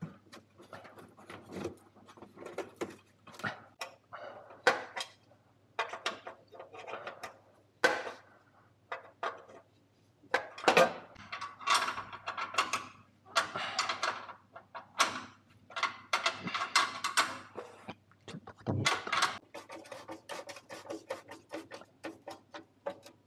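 Hand tools working metal fittings under a car's body: irregular metallic clicks, clanks and scrapes with runs of ratchet-wrench clicking, busiest about halfway through, while the replacement heat exchanger and exhaust are being fitted.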